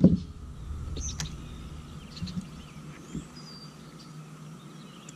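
Birds chirping and calling over a lake: a sharp arching call about a second in, then scattered fainter chirps and a thin whistle, over a faint steady hum and low rumble.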